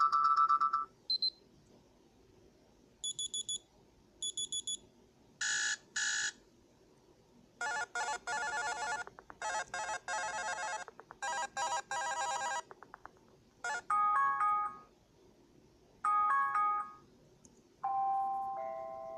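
A run of different built-in Amazon Fire alarm tones played one after another, with short gaps between them: electronic beeps and double beeps, then a rapid trilling pattern repeated several times, then chimes, and a short melodic tune near the end.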